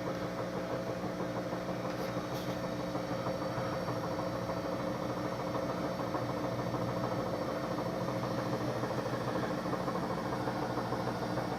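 Kenmore HE2 front-load washer running its spin cycle with the drum empty, its motor humming steadily as the drum turns at low speed before getting up to speed. The inner tub is running off-centre, the fault that keeps the motor controller from letting it spin up.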